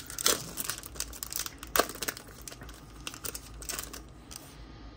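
Foil wrapper of a trading-card pack crinkling as it is handled and pulled open to take the cards out: a run of sharp crackles, loudest about two seconds in and thinning out toward the end.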